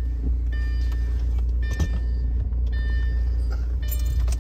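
A car's warning chime beeping about once a second, a short high beep each time, over a steady low rumble from the car.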